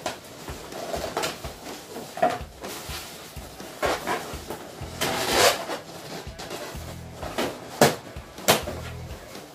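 Latex balloons being handled and rubbed against one another, giving irregular rubbery squeaks and rustles, with a couple of sharper taps near the end.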